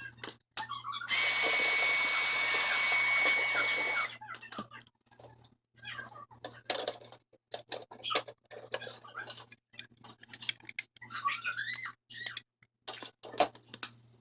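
A steady hissing blast of air, with a thin whistle in it, for about three seconds, then scattered small clicks and knocks, and a cat meowing near the end.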